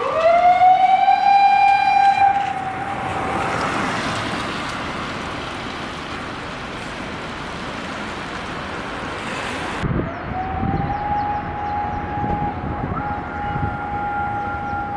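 Fire command vehicle's electronic siren (Patlite SAP-520 amplifier) wailing: the tone sweeps up and holds, then fades into road noise after a couple of seconds. About ten seconds in the siren starts again, rising to a steady held tone, and a second, higher tone joins near the end.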